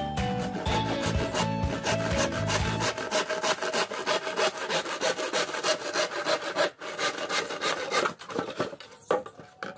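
Hand saw cutting through a green bamboo pole in quick, even back-and-forth strokes, with background music fading out over the first few seconds.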